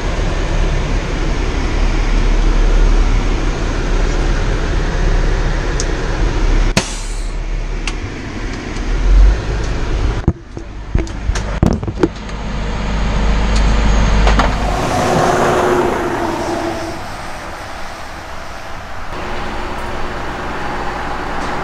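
Fire engine's diesel engine and road rumble heard from inside the cab while driving, steady for about ten seconds. It breaks off sharply, a few sharp clicks follow, and the rumble returns briefly before giving way to a quieter, different steady background in the last several seconds.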